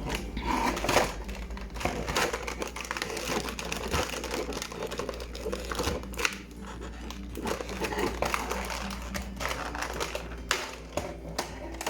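Packaging crinkling and rustling as a small figurine is unwrapped and handled, with many quick clicks and light knocks.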